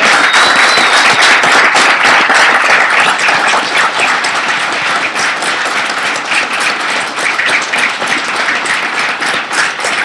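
A crowd applauding steadily. The applause is loudest at the start and eases off a little toward the end.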